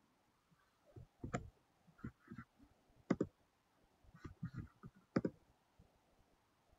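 Faint clicking of a computer mouse and keyboard, three sharper clicks about a second and a half, three and five seconds in, with softer knocks between.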